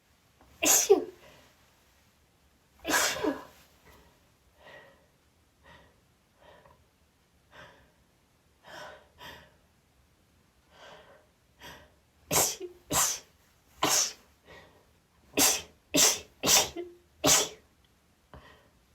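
A woman sneezing repeatedly, set off by chhinkni. Two loud sneezes come near the start, then several seconds of quieter gasps and false starts, then a rapid run of about eight sneezes in quick succession.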